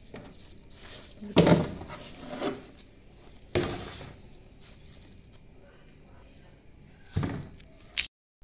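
A handful of separate knocks and clatters, the loudest about a second and a half in, with short pauses between them. The sound drops out abruptly just before the end.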